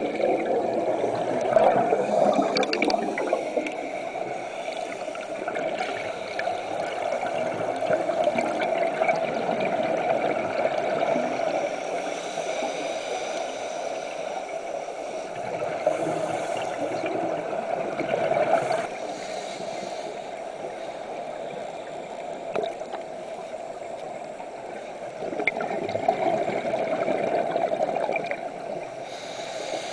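Muffled underwater sound of a scuba dive: steady water noise with the gurgling of divers' exhaled bubbles, swelling louder near the start and again near the end.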